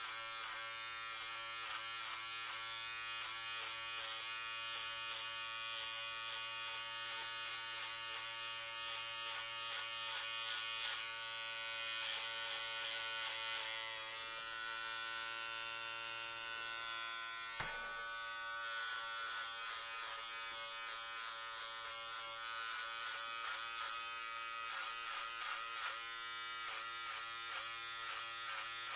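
Electric hair clippers buzzing steadily as they cut hair, the tone wavering slightly. There is a single sharp click about two-thirds of the way through.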